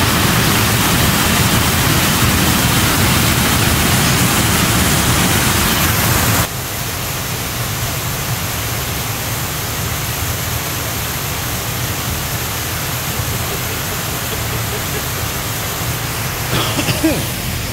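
Steady rushing of a waterfall swollen after several days of rain. The noise drops suddenly about six and a half seconds in and carries on more quietly.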